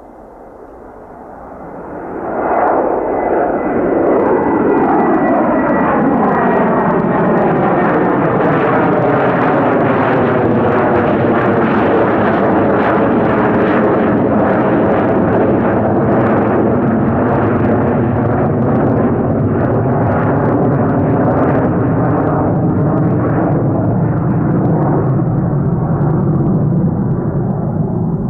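A McDonnell Douglas DC-9-33F's two Pratt & Whitney JT8D-9 jet engines at takeoff power. The sound swells sharply about two seconds in, then stays loud and steady, with a high whine that falls slightly in pitch as it swells.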